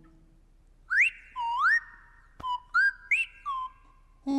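Slide-whistle character voices: a string of whistled calls starting about a second in, each sweeping quickly up in pitch and then holding a steady note, with one sharp click partway through.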